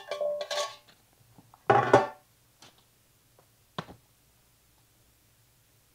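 Mushrooms tipped from a plastic container into a zip-top bag. The container knocks and rattles right at the start and again, loudest, about two seconds in, with one sharp click just before four seconds.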